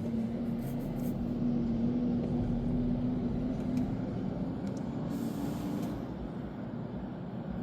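Vehicle engines running with a steady low hum, heard while waiting in traffic for utility trucks. The hum rises slightly, then fades out about six seconds in.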